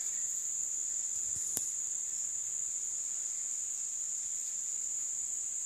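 A steady, high-pitched insect chorus that never breaks, with one faint click about a second and a half in.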